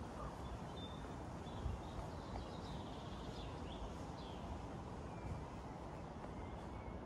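Soft, irregular footsteps of a person walking over leaf-strewn ground, with faint birdsong chirping in the background.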